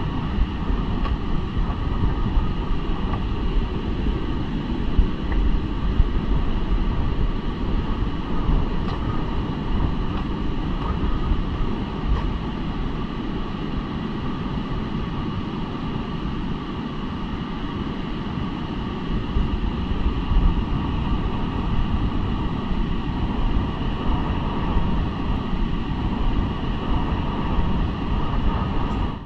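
Strong wind buffeting the microphone: a loud, steady low rumble that flutters continuously, with a faint steady hiss above it.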